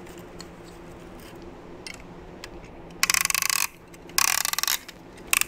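Ratcheting piston ring compressor being tightened around a piston: two bursts of rapid ratchet clicking, about three seconds in and again after four, with a short third burst near the end. A steady low hum runs underneath.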